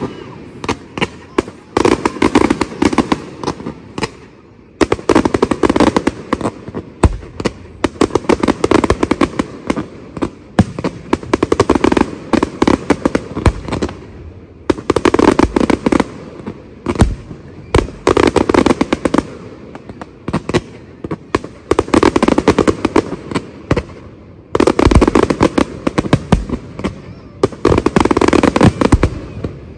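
Aerial fireworks display: rapid volleys of shell bursts and crackling come in waves about every three seconds, with a few deep booms among them.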